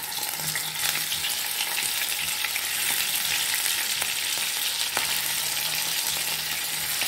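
Pieces of Egyptian beef sausage (sogoq) sizzling and crackling in hot oil in a frying pan. The sizzle gets louder in the first second as more pieces are dropped in, and there are a couple of sharp ticks.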